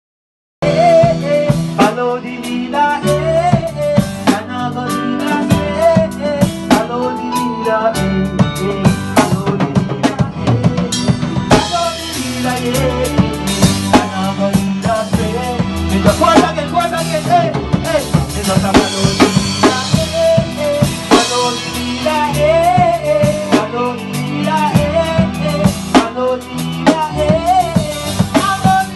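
Reggae music with a drum kit (rimshot, kick and snare), heavy bass and a wavering melodic line, starting about half a second in.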